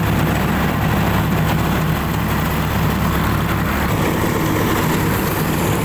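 Sonalika 50 DI tractor's 52 hp three-cylinder diesel engine running steadily. The deepest part of the rumble thins out about four seconds in.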